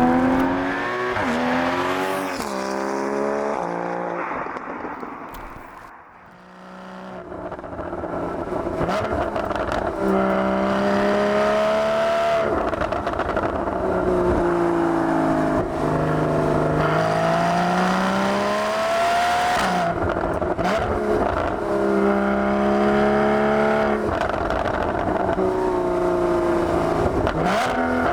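Porsche Boxster GTS (981) 3.4-litre flat-six exhaust note under hard driving, the pitch repeatedly climbing and dropping as the car pulls through the gears. Near the start the revs fall away and the sound fades to its quietest about six seconds in, then it builds again.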